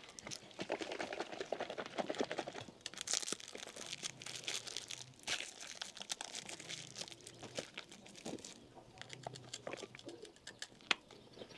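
Plastic food wrappers crinkling in small, irregular crackles as they are handled.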